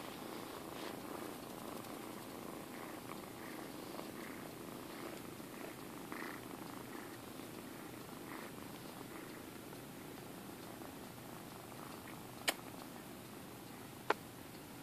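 Six- to seven-week-old tabby kittens purring steadily close to the microphone. Two sharp clicks near the end.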